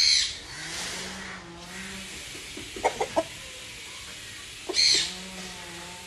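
Long-tailed white rooster crowing twice, each crow opening with a loud harsh note and trailing into a long, low, drawn-out tone. A few short sharp notes come between the two crows.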